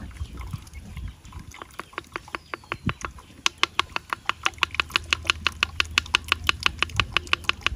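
A wooden spoon working thick blended sauce through a plastic mesh strainer, scraping and clicking against it. The clicks are sparse at first, then come quick and regular, about five or six a second, from a few seconds in.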